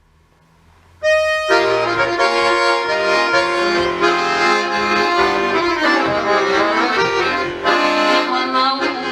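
Accordion playing the instrumental introduction to a song: a single held note about a second in, then full chords and a melody over the bass.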